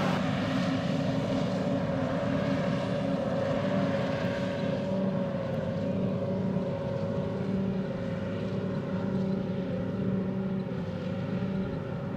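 John Deere self-propelled forage harvester chopping grass from a windrow and blowing it into a trailer: a steady machine drone with a steady whine held over it.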